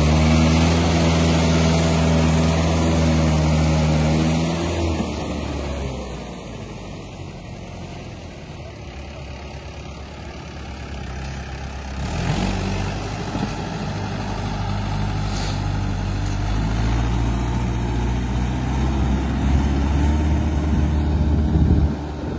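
Mahindra 575 DI XP tractor's four-cylinder diesel engine running under heavy load, pulling a loaded trolley hard enough that the front wheels lift off the ground. Loud and steady for the first few seconds, it fades through the middle, builds again in the second half and drops off abruptly near the end.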